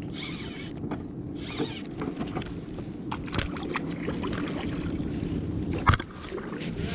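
Water and hull noises on a fishing kayak, with scattered light clicks and a sharp knock near the end.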